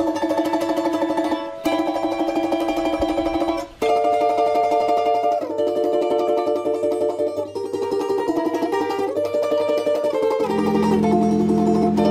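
Background music on plucked strings, with quick repeated notes and chords changing every few seconds. A low sustained note comes in near the end.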